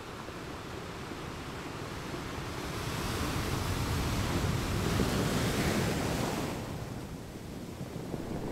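Surf on a sandy beach: a wave breaking and washing in, its hiss swelling a few seconds in and easing off near the end, over a steady low rumble of the sea.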